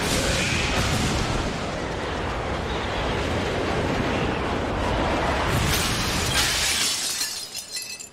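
A television sound-effect explosion with shattering glass and crashing debris: a loud, continuous crash that carries on for several seconds, then dies away near the end.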